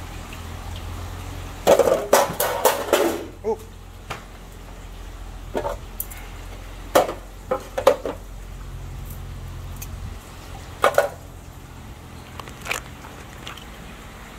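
Hard objects being handled: a quick run of clattering knocks about two seconds in, then scattered single knocks and clinks, over a steady low hum.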